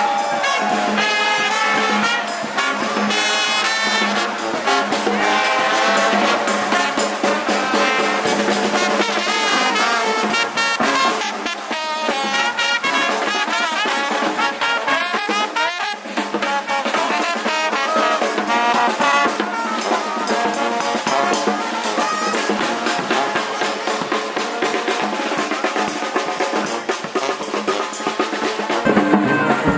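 Brass music, with trumpets and trombones playing over drums.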